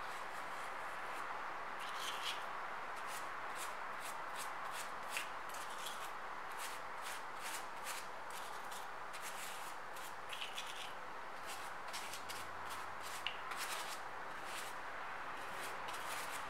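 Pastry brush bristles dabbing and swiping over the crusts of baked bread rolls: a continual run of short, soft swishes and light taps, over a steady background hiss.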